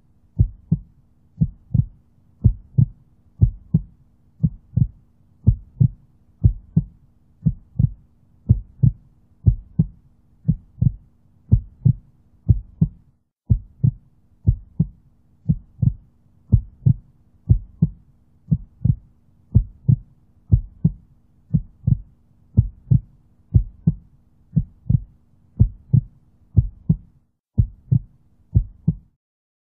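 A soundtrack pulse: a steady beat of low thumps, somewhat faster than one a second, over a faint steady hum. The hum breaks off briefly about halfway through, and the beat stops just before the end.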